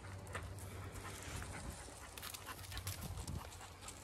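A dog panting, with light rustling and scrabbling of paws over stone steps and long grass.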